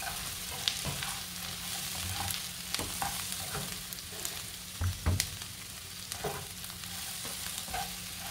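Onion masala and fried potato cubes sizzling in a nonstick frying pan, stirred with a spatula that scrapes and clicks against the pan over a steady hiss. Two dull knocks about five seconds in are the loudest sounds.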